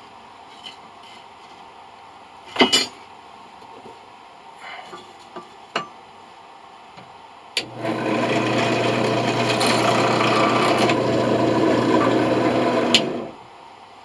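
A few small clicks and a sharp knock, then a power drill starts and runs steadily for about five seconds before stopping, drilling into a brass coin.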